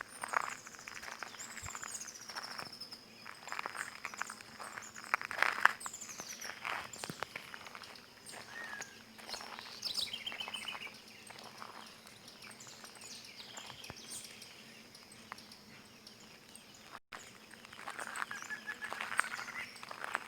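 Several birds singing: high falling whistles early on and a quick falling run of notes about halfway through. Crunching footsteps on stone and dry vegetation come at irregular intervals.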